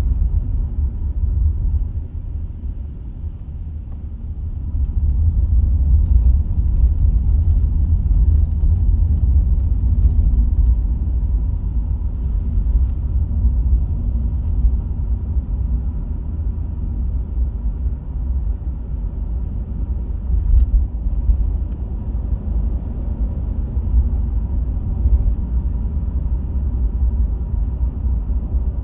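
Low rumble of road and tyre noise inside a moving taxi, steady, dipping for a few seconds near the start and then rising again.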